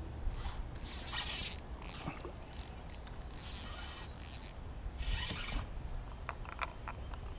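Spinning reel being worked by hand: several short rasping whirs of the reel's gears and line, with a few small sharp clicks near the end.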